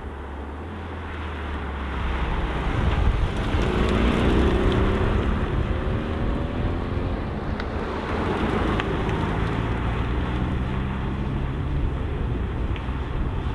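Sports car engine accelerating hard, its pitch climbing from about three seconds in, then climbing again after a gear change.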